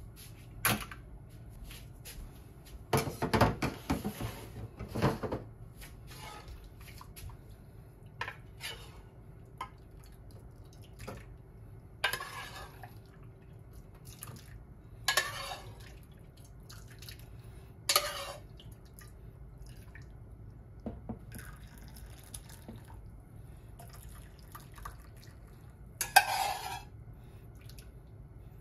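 Kitchen dishware handling on a stainless steel counter: a series of separate short clinks and knocks of bowls and a ladle, with brief splashing pours as soup is ladled into small bowls.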